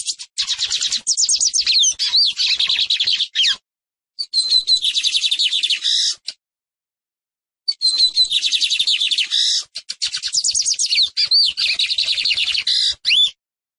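Lined seedeater (Sporophila lineola) singing: three bursts of fast, trilled chattering song, each a few seconds long, with brief pauses between them and a few sliding notes mixed into the trills.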